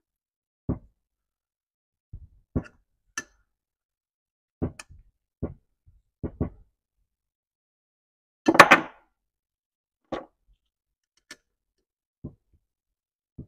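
Scattered short metallic clicks and knocks from a ratcheting wrench backing an exhaust manifold bolt out of a thread insert in an aluminum cylinder head. One louder clatter comes a little past halfway.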